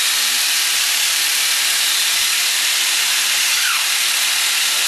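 Homemade pulse motor running steadily, a constant hiss with a faint hum underneath.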